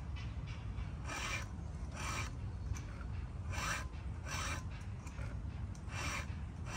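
Hand file rasping in slow, unevenly spaced strokes, about six of them, as when a chainsaw chain's cutters are sharpened with a round file. A low steady rumble lies underneath.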